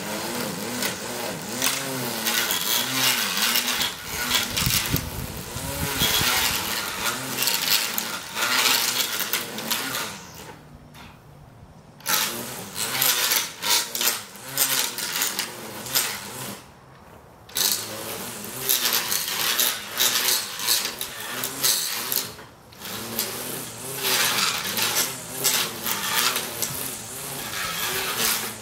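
Manual push reel mower cutting tall grass: its spinning reel blades whir and click against the bed knife, and the whir rises and falls in pitch with each push stroke. The grass rustles as it is sheared. The mowing stops briefly a few times.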